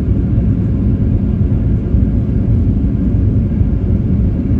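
Cabin noise of a Boeing 737 rolling on the runway after landing: a loud, steady low rumble of engines and wheels on the concrete.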